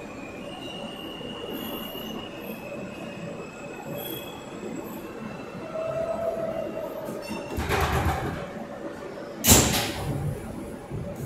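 New York City subway train running through a tunnel and slowing into a station, with a faint steady wheel squeal. Two short loud hisses come near the end, the second the loudest.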